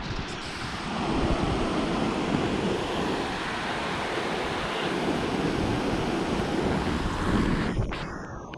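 Waterfall rushing: a steady, dense rush of falling water that grows louder about a second in and fades near the end.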